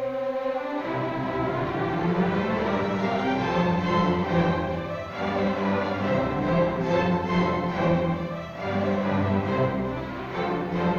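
Orchestra playing, coming in suddenly and loudly with sustained full chords, easing briefly a little past halfway before swelling again.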